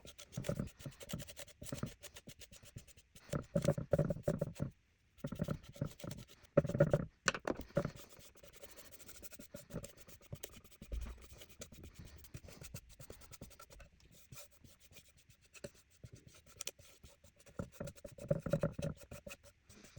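Paintbrush strokes spreading Minwax Polyacrylic clear coat over a painted wooden panel: soft, irregular rubbing and scratching of bristles on wood, in uneven strokes with short pauses.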